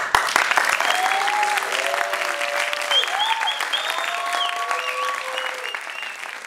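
Audience applauding, with several drawn-out cheers over the clapping; the applause starts to die down near the end.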